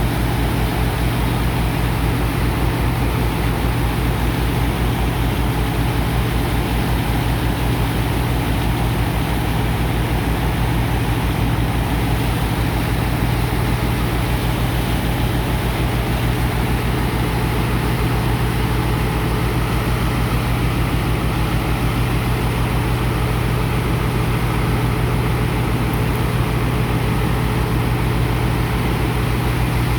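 Sand dredger's engine and pump running steadily: a deep drone with a strong low hum and a fast, even throb underneath.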